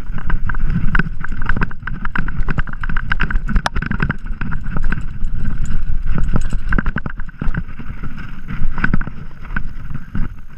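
A mountain bike rattles and clatters as it rides downhill over rough, bumpy dirt and grass, with many small knocks from the frame and parts. Wind buffets the camera microphone as a heavy rumble underneath. Both get quieter near the end.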